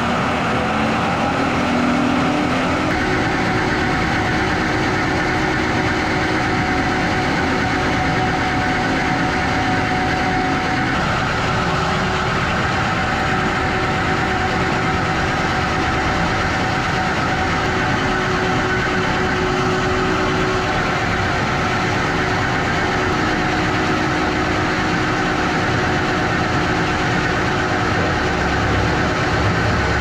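Engine of a mowing machine running steadily, with a hydraulically driven rotary brush cutter spinning as it mows through tall grass and weeds. A continuous loud hum whose pitch shifts slightly about three seconds in.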